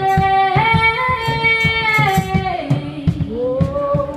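Women's voices singing held notes in close harmony, the chord stepping to new pitches every half second or so, over a steady low beat of about four pulses a second: a vocal sound check with the band.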